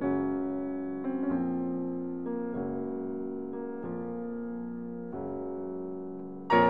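Background piano music: sustained chords that change about every second and a half, with a louder chord struck near the end.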